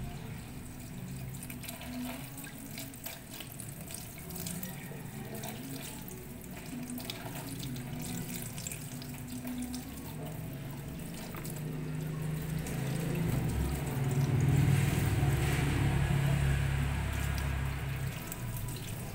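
Kitchen tap running while chicken feet are rinsed and rubbed by hand under the stream, water splashing into a plastic colander in a steel sink. It grows louder for a few seconds past the middle.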